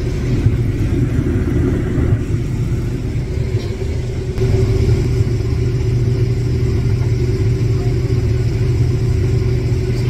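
Combine harvester running while harvesting corn, heard from inside the cab: a steady low engine and machinery drone with a constant hum. It gets slightly louder about four and a half seconds in.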